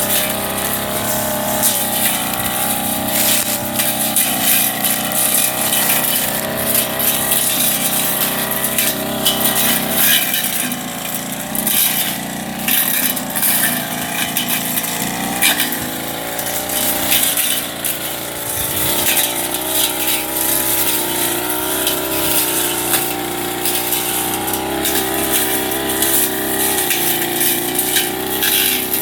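Backpack brush cutter's small petrol engine running at high speed, its pitch wavering as the blade cuts through weeds, with frequent sharp clattering hits of the blade on grass and debris.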